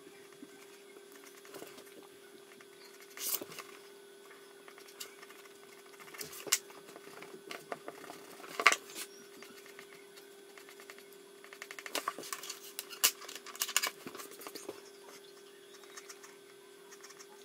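Pencil scratching on drawing paper in short, scattered strokes, with hands rubbing across the sheet; the sounds come in bursts, the loudest about halfway through and a busy run a few seconds later. A faint steady hum lies underneath.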